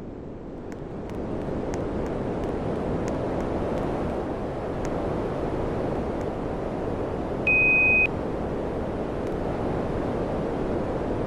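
Air conditioner running, its airflow noise rising over the first couple of seconds and then holding steady, with a few faint ticks early on. About two-thirds of the way through, the unit gives one short, high beep.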